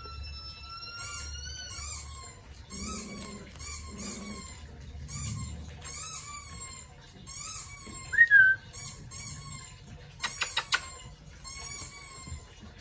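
Puppies whining in a run of short, high cries, with one loud yelp about eight seconds in and a quick rattle of sharp knocks a couple of seconds later.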